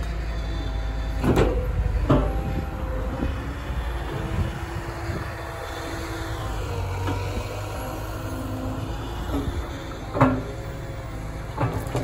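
Liebherr A 922 Rail road-rail excavator's diesel engine running steadily as its arm and bucket swing. A few sharp knocks sound over it, twice near the start and twice near the end, the loudest about ten seconds in.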